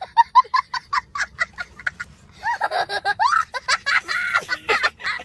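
A young child laughing: a quick run of short, high laughs, about six a second, then from about two and a half seconds in longer squealing laughs that rise and fall in pitch.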